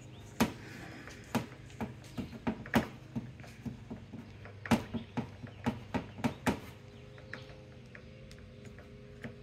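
Irregular small clicks and taps of a Porsche 996 clamshell motor's shaft and pin being worked loose by hand on a metal bench. The clicks thin out about two-thirds of the way through.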